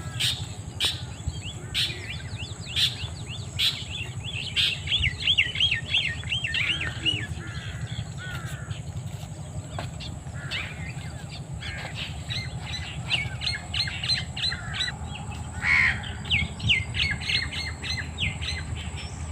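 Birds calling outdoors: runs of quick, repeated high chirps and squawks, over a steady low background noise and a faint steady high-pitched tone.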